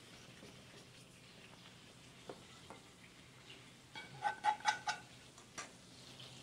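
Faint kitchen room noise, then about four seconds in a quick run of light metallic clinks as hot melted butter is poured from a small pan into a stainless-steel mixing bowl, with one more clink a little after.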